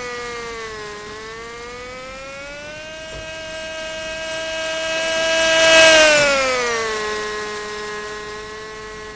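Radio-controlled model racing airplane's engine flying past at high revs with a high-pitched whine. It grows louder to a peak about six seconds in, then drops in pitch and fades as the plane passes.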